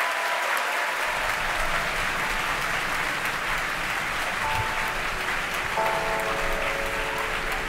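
A crowd applauding and cheering, a steady wash of clapping, greeting the side boosters' entry burn. Soft background music with held notes comes in about halfway through.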